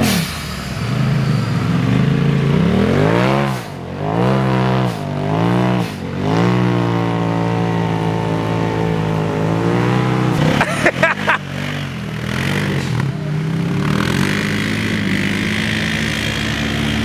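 Side-by-side UTV engine revving up and easing off several times, then running at a steady pitch. A brief cluster of knocks comes about eleven seconds in.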